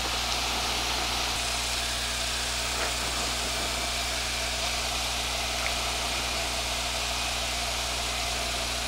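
Piper Pacer PA-22/20-135's 135 hp four-cylinder engine and propeller running in a steady drone, heard inside the cabin, in slow flight on approach to landing.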